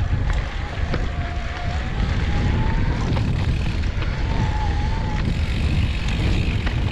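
Electric mountain bike riding over a dirt trail. The motor's thin whine wavers up and down over heavy wind buffeting on the microphone and the rumble of tyres, with a few sharp clicks.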